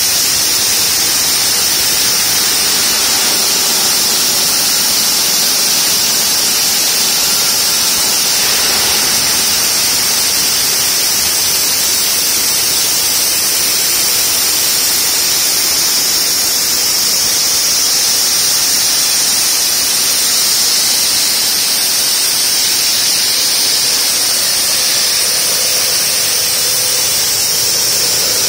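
Multiblade diamond block saw cutting through a granite block under water spray: a loud, steady hiss with a constant high-pitched whine above it.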